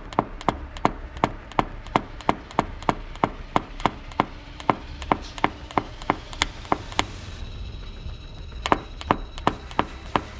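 Light, rapid taps of a paintless dent repair hammer and knockdown tool on a car body panel, about three a second, blending out the high spots around the dent. The tapping pauses briefly in the later part, then resumes.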